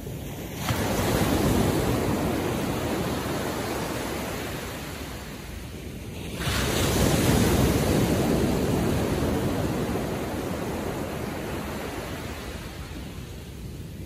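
Ocean waves breaking on a beach: a wave crashes about a second in and another about six seconds in, each surging up suddenly and then washing out slowly over several seconds.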